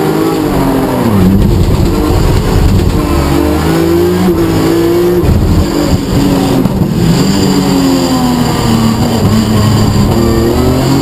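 BMW E46 M3 rally car's 3.2-litre straight-six engine revving hard under full acceleration, heard from inside the cabin. Its pitch climbs through each gear and drops at every shift, with upshifts followed by a downshift near the end.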